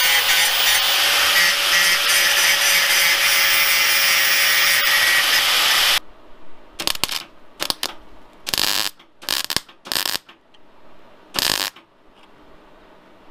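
Electric angle grinder running steadily against the steel differential housing of a Land Rover Series 3 axle, its motor whine steady, stopping abruptly about six seconds in. Then about six short bursts of arc welding as tacks go onto the housing, with pauses between them.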